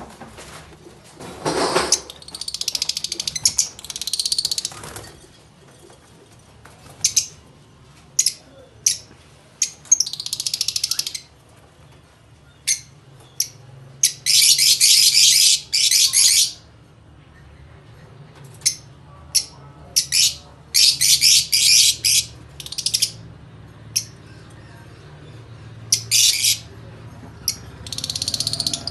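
A flock of caged lutino lovebirds calling: many sharp, high-pitched chirps and squawks, with longer bouts of shrill chattering about 14 and 21 seconds in.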